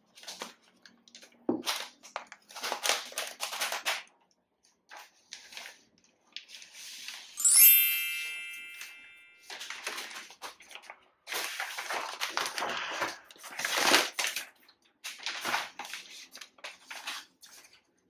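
Rustling and scraping of paper and cardboard packaging as a laptop is lifted out of its box and put back in, in short bursts. About seven and a half seconds in, a bright chime of several notes rings out and dies away over about two seconds.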